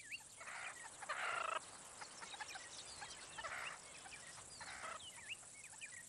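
Faint outdoor bird calls: many short chirps scattered throughout, with a few brief bursts of chattering, the longest about half a second in.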